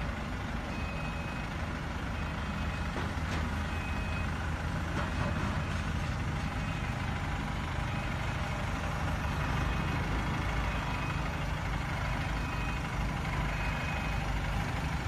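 Truck engine running steadily, with a reversing alarm giving short high beeps roughly every second and a half.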